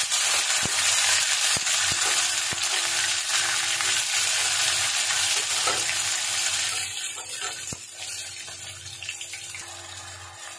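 Chopped tomatoes sizzling loudly as they hit hot oil with whole spices in a steel kadai. A few light clicks sound as pieces drop in, and the sizzle dies down after about seven seconds.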